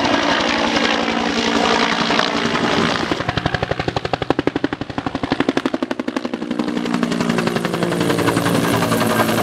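Firefighting helicopter flying low overhead: a steady engine and rotor noise, with the main-rotor blade chop turning into a distinct, fast pulsing beat of about ten a second in the middle.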